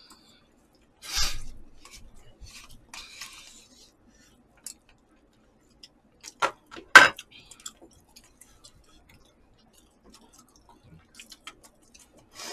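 Eating utensils clicking and scraping against takeout food containers: scattered light clatters, a thudding clatter about a second in, and two sharp knocks about six and seven seconds in.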